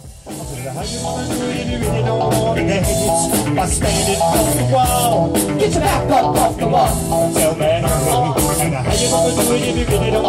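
Live band playing with electric guitar, bass guitar and drums keeping a steady beat, fading in over the first two seconds.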